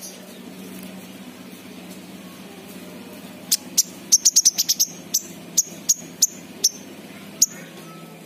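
King konin sunbird giving a run of short, sharp, high chips: a quick burst of them about halfway through, then single chips spaced out. A steady low hum runs underneath.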